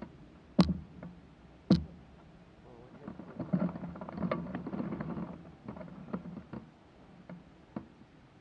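Handling noise from a crashed hang glider and its pilot's gear: two sharp knocks about a second apart, then a couple of seconds of rustling and clattering, with a few scattered clicks after it.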